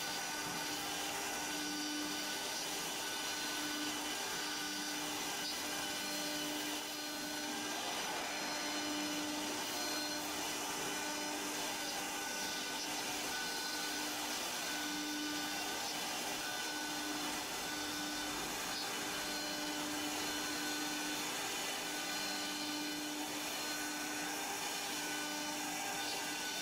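Cylinder CNC router running steadily while engraving wood on its rotary axis: a continuous motor hum and whine over cutting noise, with one low tone that swells and fades every few seconds.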